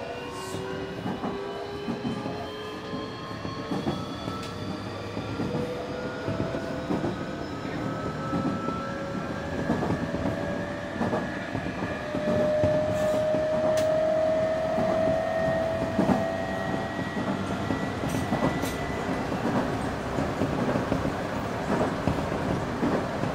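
Semboku 9300 series electric train running, its Hitachi SiC VVVF inverter whine rising steadily in pitch as the train accelerates, then fading out about three quarters of the way through. Wheel and rail rolling noise with scattered joint clicks runs under it and grows louder near the middle.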